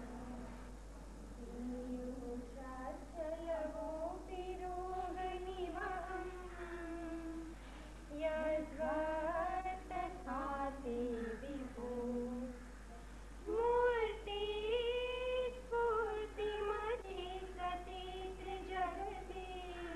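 High female voices singing a slow melodic song, with long held notes that glide between pitches.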